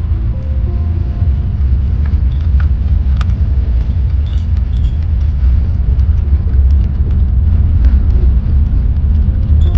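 Steady low rumble of a vehicle on the move, with scattered faint clicks over it.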